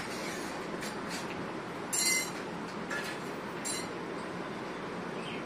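Steady background noise with a few brief clinks and scrapes. The loudest is a short scrape about two seconds in.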